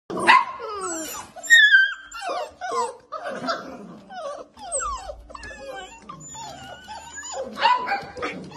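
A litter of golden retriever puppies whining and yelping together, many high calls overlapping, most sliding down in pitch.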